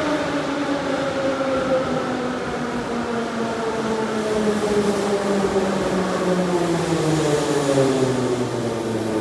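An 81-717/714 'Nomernoy' Moscow metro train slowing into a station. The whine of its traction motors falls steadily in pitch as it brakes, over the rumble of the wheels on the rails.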